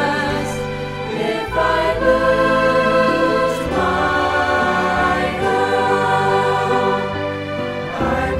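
Mixed choir of men's and women's voices singing in sustained harmony, the chords changing every second or two over low held bass notes.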